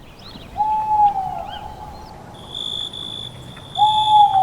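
Outdoor animal sounds: two drawn-out whistled calls about three seconds apart, each holding one pitch and then dropping off, over faint bird chirps. From about halfway a high insect-like buzz pulses on and off.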